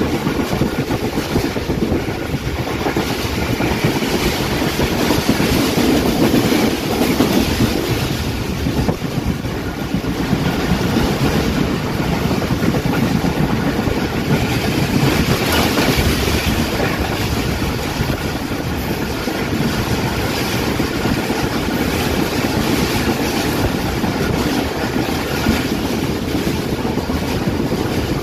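Moving passenger train heard from inside its coach at the window: a steady rumble of wheels on the rails with continuous clatter.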